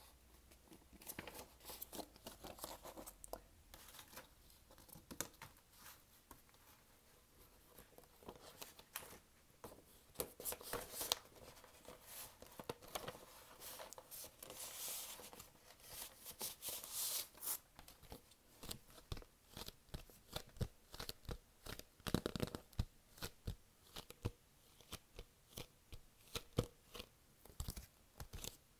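Paper record sleeves rustling and sliding as a vinyl LP is put back into its inner sleeve and the printed paper lyric sleeve is handled, with many light taps and clicks that come thicker in the second half.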